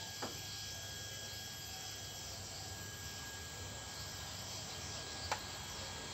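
Steady background insect chirring with a thin, unchanging high tone. A sharp click comes just after the start and a louder one about five seconds in.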